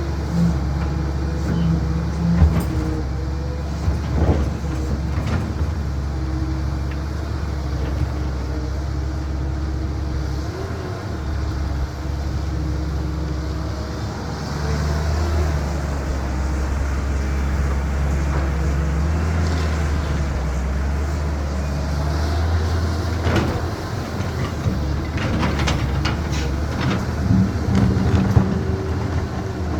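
CAT 320 hydraulic excavator's diesel engine running steadily, a little louder under load from about halfway through, with sharp knocks and clanks a few seconds in and again near the end.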